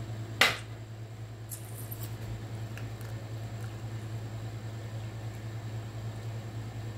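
A steady low hum, with one short sharp noise about half a second in and a few faint clicks soon after.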